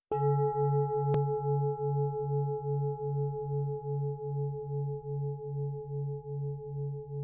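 A deep ringing tone, struck once and slowly fading, that throbs about twice a second, with one sharp click about a second in.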